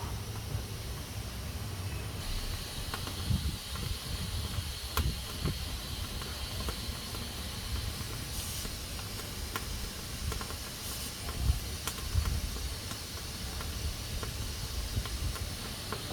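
Pressure cooker hissing steadily as steam escapes from its valve, the hiss growing stronger about two seconds in. A low rumble and scattered sharp clicks run underneath.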